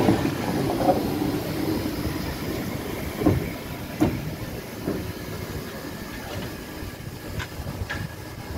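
DB class 23 steam locomotive rolling slowly past and away on the track, with a few sharp metallic clacks from the wheels and running gear about three to five seconds in; the rumble grows fainter as it draws away.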